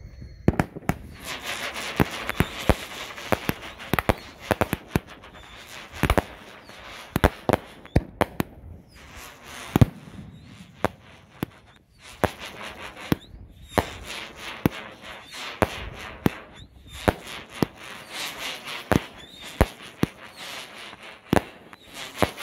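Two Clickbait Brand Oktoberfest firework cakes firing at once: a fast, irregular run of sharp bangs from launching shots and bursting breaks over a steady whistling hiss, with short lulls about nine and twelve seconds in.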